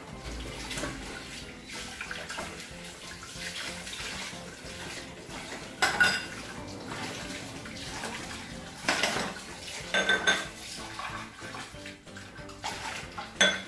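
Glasses and plates being washed under a running tap in a stainless steel sink: water running steadily, with several sharp, ringing glass-and-dish clinks, the loudest about halfway through and again a few seconds later.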